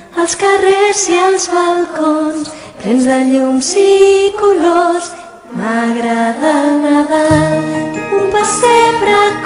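Singing in held, stepping notes over musical accompaniment, with short pauses between phrases and a low sustained note entering near the end.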